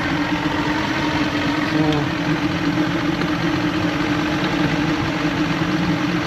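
Evinrude 150 XP V6 two-stroke outboard idling steadily while running on only one cylinder bank, because one side's power pack has failed.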